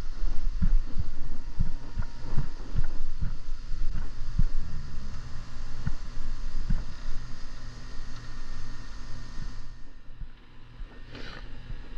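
Low rumble of wind and handling on a hand-held phone microphone, with irregular dull thumps from the phone being moved, most of them in the first several seconds. A faint steady hum runs beneath.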